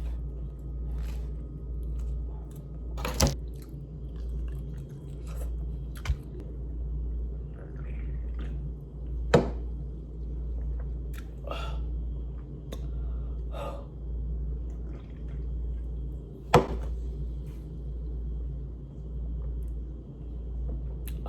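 Soft mouth sounds of chewing and swallowing, with four sharp clicks spread far apart, over a steady low hum.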